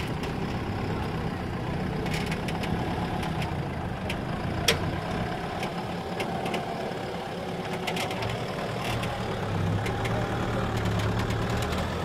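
Off-road SUV engine running at low revs while crawling over rock, with scattered light clicks and one sharp click about five seconds in.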